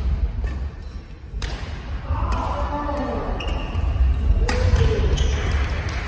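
Badminton rally on a wooden gym court: two sharp racket strikes on the shuttlecock about three seconds apart, with thudding footsteps on the floor.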